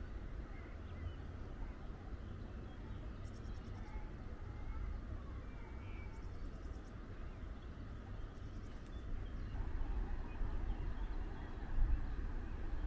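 Outdoor ambience: a steady low wind rumble on the microphone, with three short, faint, high chirping trills.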